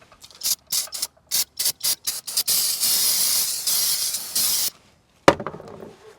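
Aerosol spray can hissing, first in a quick run of short squirts, then in one steady spray of about two seconds that stops sharply. A single sharp knock comes near the end.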